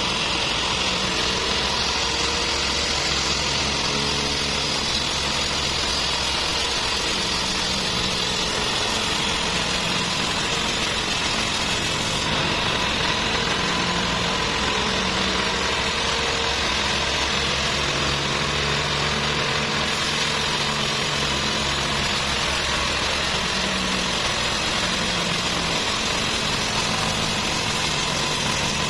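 Band sawmill running steadily, its blade cutting lengthwise through a large trembesi (rain tree) log.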